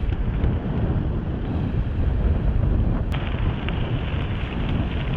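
Heavy wind buffeting on the microphone of a gravel bike ridden at about 25 mph over gravel, with a steady low rumble from the tyres and a sharp click about three seconds in.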